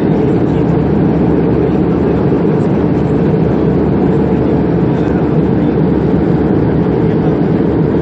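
Steady, loud airliner cabin noise in flight, the even rush of the engines and air heard from inside the cabin.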